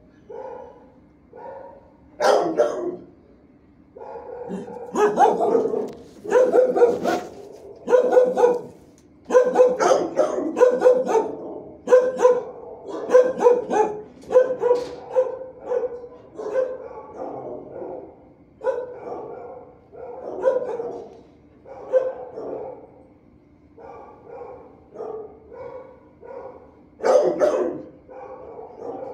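Shelter dogs barking repeatedly in the kennels. There is one loud bark about two seconds in, a dense run of barks through the middle, and another loud bark near the end.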